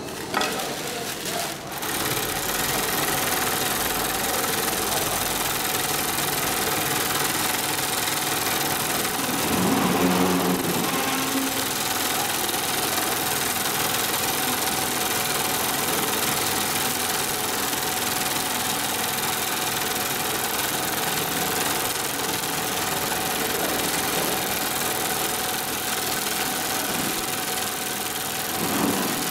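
Industrial long-arm zigzag sewing machine running steadily while stitching sail fabric, coming up to a steady run about two seconds in.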